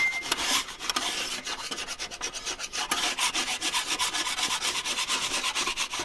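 Metal spatulas scraping an iron griddle plate in quick, repeated strokes as the plate is cleaned.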